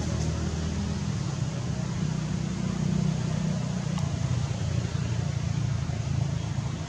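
A steady low mechanical hum or rumble, even in level throughout.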